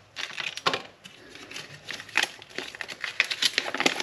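Packaging crinkling, with irregular small clicks and rustles, as the mounting kit's hardware is unpacked and handled.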